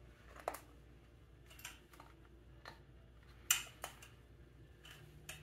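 Scattered light knocks and clicks, the loudest about three and a half seconds in, as the alloy timing cover of a Triumph T140V twin engine is tapped and worked loose by hand.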